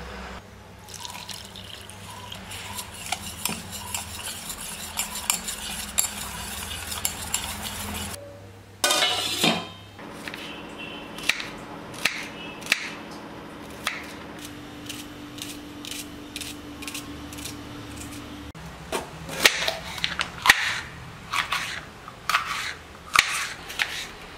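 A spoon clinking as batter is stirred in a steel bowl, then, after a brief louder rush of noise about nine seconds in, a kitchen knife cutting shallots and then green capsicum on a plastic cutting board: a steady series of knife taps on the board, louder in the last few seconds.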